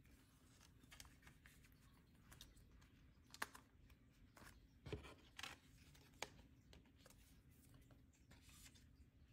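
Soft rustling of clear plastic binder pockets and photocards as cards are slid into the sleeves. A few sharper little clicks come about three and a half, five and six seconds in.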